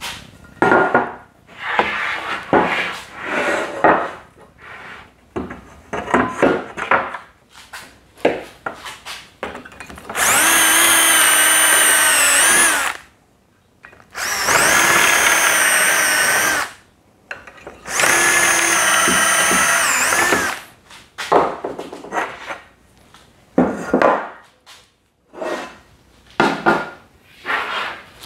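Cordless drill boring three holes, one after another, into the edge of an 18 mm chipboard panel through a drilling jig. Each run is a steady whine lasting about three seconds. Before and after, there is clatter and knocking as the jig and board are handled.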